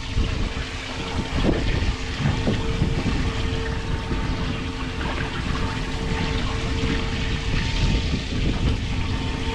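Wind rumbling on the microphone aboard a fishing boat, over a steady motor hum.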